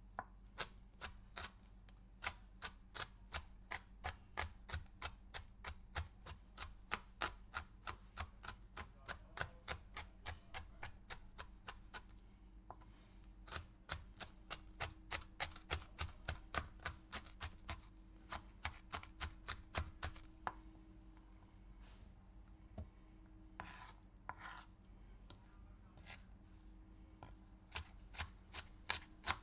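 Knife chopping a pepper: a long even run of sharp strokes, about three a second, breaking off for a few seconds with a couple of short scrapes near the end, then resuming. A faint steady hum lies underneath.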